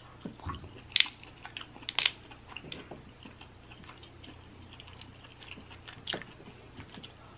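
Close-miked eating of Dungeness crab: chewing with scattered sharp clicks as meat is picked from the shell and eaten. The loudest clicks come about one and two seconds in, with another near six seconds.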